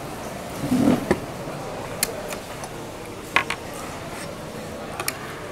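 Several sharp clicks and light knocks of tableware at a meal, a metal water bottle's cap and a spoon among them, over a steady room hum, with a short low sound just under a second in.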